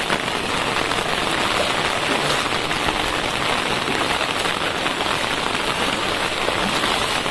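Steady rain falling on floodwater that covers a street, the drops splashing into the standing water in an even, unbroken hiss.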